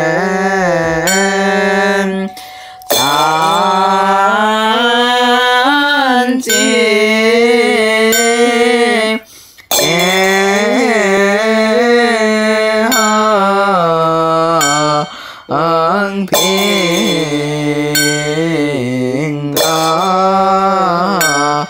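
Chinese Mahayana Buddhist liturgical chanting, sung in long drawn-out melodic phrases, with short breath pauses about two, nine and fifteen seconds in.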